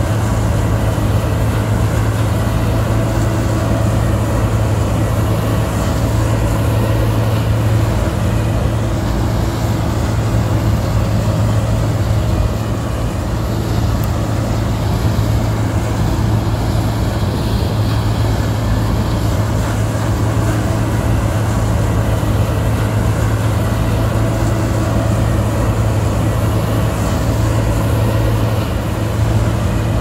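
Steady machine running at constant speed: a loud, unchanging low hum with fainter higher tones over a noisy rush.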